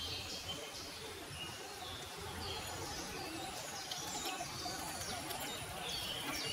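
Woodland songbirds singing, with many short, downward-sweeping chirps repeating throughout over a steady background hiss.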